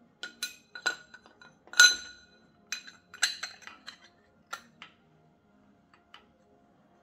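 Metal hand tools and engine parts clinking against each other, a string of sharp metallic clinks with a short ring. The loudest clink comes about two seconds in, and the clinking dies down to a couple of light taps near the end.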